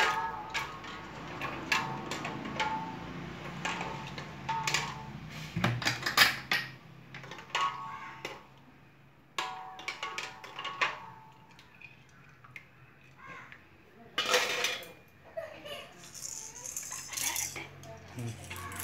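Steel tongs clinking and knocking against a stainless steel pot as plastic baby rattles are moved about in the water, in irregular clusters of sharp clicks. Background music plays underneath.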